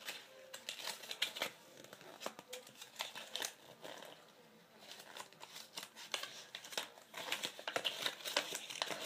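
Crinkling and rustling of a Shopkins blind-pack wrapper and its folded paper collector's list being handled and opened out: irregular crackles, busier near the end.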